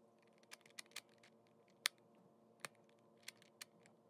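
Shengshou magnetic clock puzzle clicking as its dials are turned to align the corners: short, sharp, irregular clicks, a few a second, with one louder click a little before the middle.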